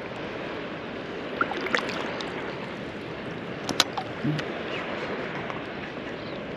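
Sea water lapping and gurgling steadily against a float tube, with a few short sharp ticks, the loudest nearly four seconds in.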